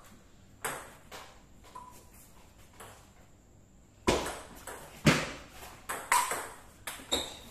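Table tennis ball in play: sharp clicks of the ball striking the bats and bouncing on the table. A few soft ticks come in the first three seconds, then from about four seconds in a rally, with loud clicks about once a second and lighter bounces between.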